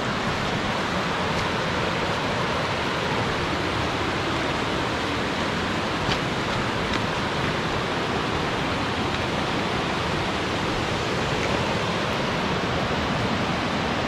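Steady rush of a rocky creek and a low waterfall: an even hiss of running water.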